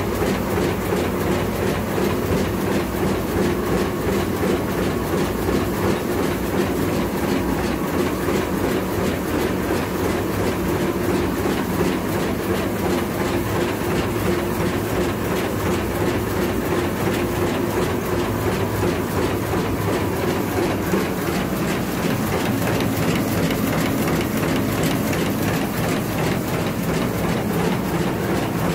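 Double-decker bottom sealing and cutting machine for plastic bags running, a steady rapid mechanical clatter of its sealing and cutting strokes over a steady machine hum. About three-quarters of the way through, the lowest part of the hum drops away.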